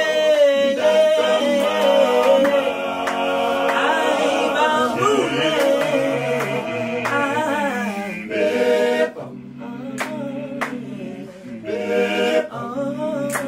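Male a cappella choir singing in close harmony, with a few sharp clicks in the last few seconds as the voices thin out.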